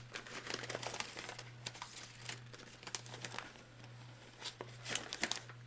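Plastic zip ties being fitted and pulled tight around a sculpture armature: scattered small clicks and rustling as they are handled, with a quick run of ratcheting clicks near the end. A steady low hum sits underneath.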